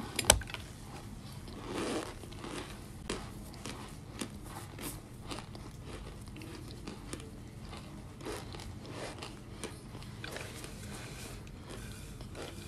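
Oven-baked cornstarch being bitten and chewed by the handful: repeated crunching and crackling, with a sharp crack just after the start.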